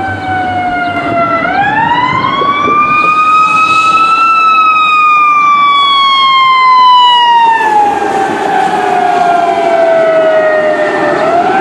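Fire truck's Federal Signal EQ2B electronic siren, which imitates the mechanical Q2B, running in a slow wail. It dips, winds up to its peak about four seconds in, then coasts down for several seconds and starts winding up again near the end.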